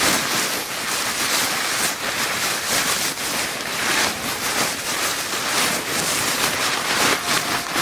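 Paper bag being crinkled and crumpled by hand without a break, a continuous crackle of many small paper clicks.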